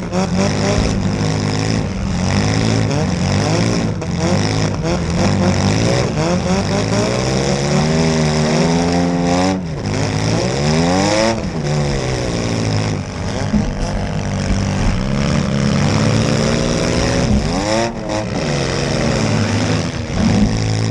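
Several demolition derby cars' engines revving hard at the same time, their pitches rising and falling as the cars accelerate and back off, with occasional sharp bangs of cars colliding.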